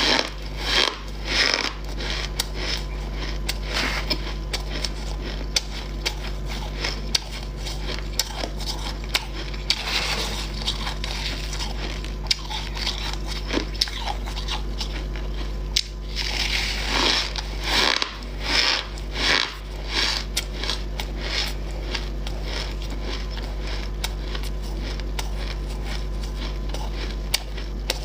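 Freezer frost being bitten and chewed close to the microphone: a string of crisp crunches and crackles, with louder bursts of crunching near the start, about ten seconds in, and again around seventeen to twenty seconds in. A steady low hum runs underneath.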